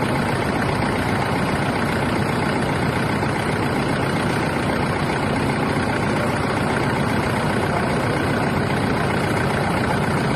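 Toyota Innova engine idling steadily, an even, unchanging running sound.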